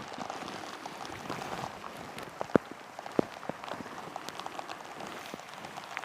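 Rain falling steadily, with many small drop impacts close by. Two louder single drop hits come about two and a half and three seconds in.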